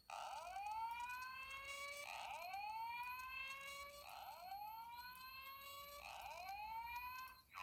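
Fire alarm speaker sounding a slow-whoop evacuation tone: four rising sweeps of about two seconds each, repeated back to back. This is the alert tone that leads into the 4100U recorded voice evacuation message.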